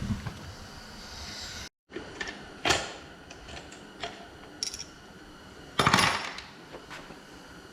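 Metal parts of a TorqueFlite A727 automatic transmission clinking and clanking as they are handled during teardown: a handful of sharp metallic knocks, the loudest about six seconds in.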